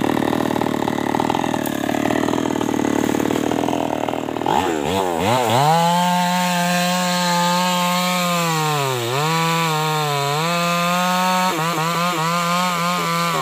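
Maestro 6500L chainsaw running, then speeding up about four seconds in to a steady high pitch as it cuts through an acacia log. The pitch sags briefly twice as the chain bites into the wood, and drops again near the end.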